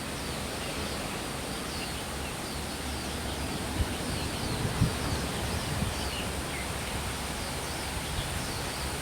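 Steady rushing of a waterfall, an even noise across all pitches, with faint high chirps repeating over it and two soft low bumps about four and five seconds in.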